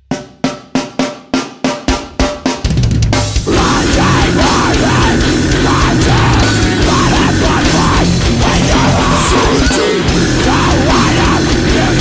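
Opening of a loud heavy rock song: a run of sharp hits that come faster and faster over the first few seconds, then the full band comes in playing continuously.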